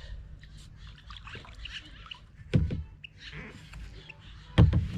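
Two loud hollow thumps about two seconds apart, knocks against a small paddle boat's hull, over faint small splashes and trickles of water.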